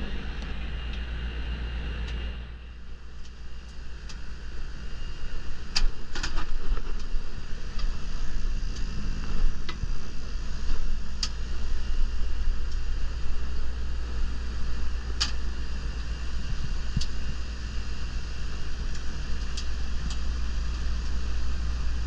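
Central air conditioner's outdoor condensing unit running, with a steady low hum and a few sharp clicks along the way. The compressor is running again with its blown hard start kit taken out of the circuit.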